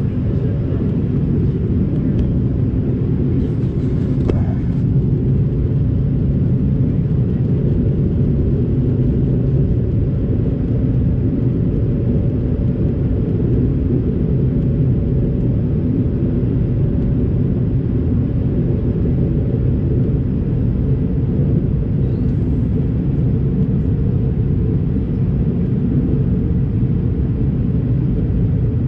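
Airbus A220-300 cabin noise in flight: a steady low rumble of the engines and rushing air heard from a window seat.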